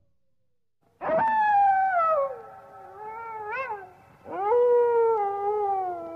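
Animal howling after a second of silence: a long call that slides down in pitch, a short call that rises and falls, then a second long call that rises, holds and slowly falls away.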